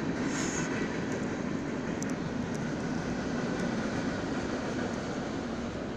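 Union Pacific freight train passing at speed, a steady noise from its cars with a few faint clicks, heard from inside the station building.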